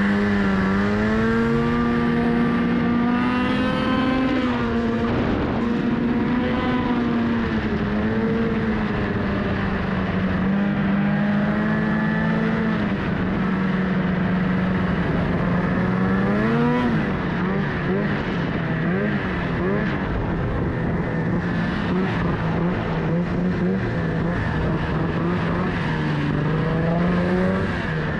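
Snowmobile engine running under throttle, its pitch rising and falling as the speed changes, with a sharp swing about two thirds of the way through.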